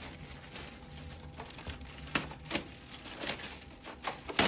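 Hard plastic clicking and knocking as a printer's output tray is handled and fitted to the front of the printer. The clicks are scattered, the loudest near the end.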